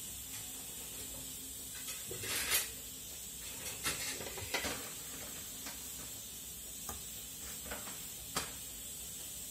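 Scattered clicks and knocks of a spoon and cookware on a gas stove, the loudest a short noisy burst about two and a half seconds in. A steady faint hiss runs underneath while a paratha cooks on a hot, steaming pan.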